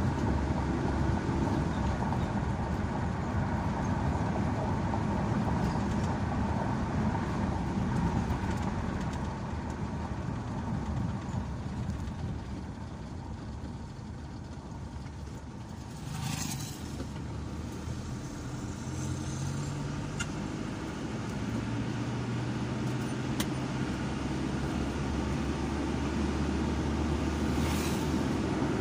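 Car engine and tyre noise heard from inside the cabin while driving, a steady rumble whose engine note grows stronger in the second half. There is a brief rush of noise about halfway through and again near the end.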